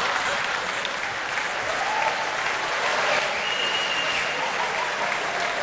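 Large theatre audience applauding steadily.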